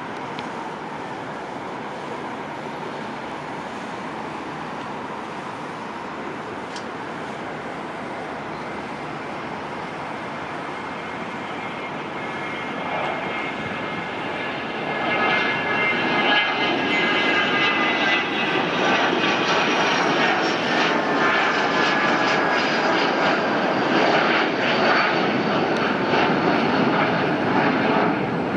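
Dassault Falcon 900's three turbofan engines at takeoff power. A steady rush for the first half grows louder about halfway through as the jet climbs out, joined by high whining tones that slowly fall in pitch.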